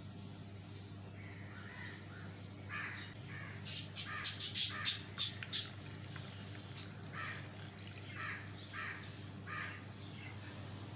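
Crows cawing: a quick run of loud, harsh calls about four to six seconds in, with fainter bird calls scattered before and after.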